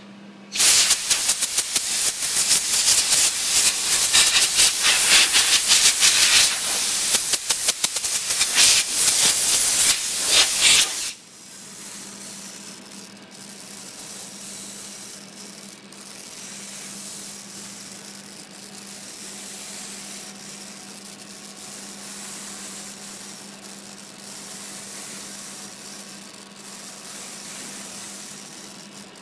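Flame-polishing torch hissing as its small flame is played along acrylic edges. For the first ten seconds or so the hiss is loud and rushing with rapid crackle, then it drops suddenly to a much quieter steady hiss over a low steady hum.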